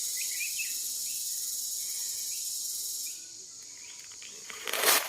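Steady high-pitched insect chorus with small bird chirps, which cuts off abruptly about three seconds in. Near the end there is a loud, short rustling noise.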